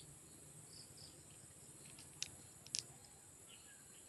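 Near silence, broken by a few light, sharp clicks of small glass bottles knocking together in the hand: one about two seconds in and two close together just before three seconds. Faint insect chirps sit in the background.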